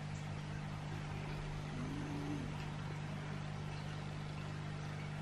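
Steady low electrical-sounding hum with faint hiss behind it; a brief faint tone rises and falls about two seconds in.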